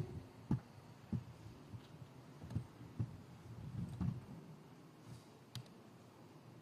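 Quiet hall with about half a dozen soft, irregular low thumps and a sharper click near the end.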